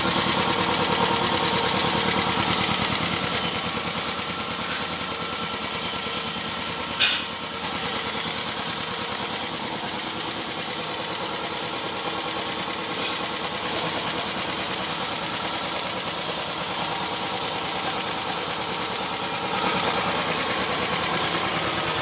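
Belt-driven piston air compressor running steadily, with a high hiss that comes in about two seconds in. One sharp knock about seven seconds in.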